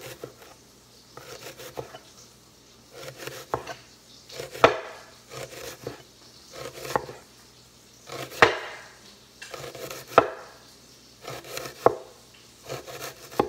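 Kitchen knife slicing through a half onion and knocking on a wooden cutting board, one cut every second or two, each with a short crunch and a sharp knock.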